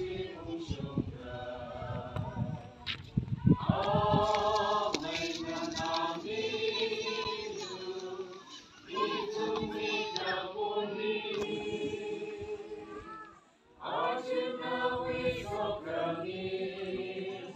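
A crowd of men and women singing a song together, sustained notes with short breaks between phrases and a clear pause about three-quarters of the way through. Low rumbles on the microphone in the first few seconds.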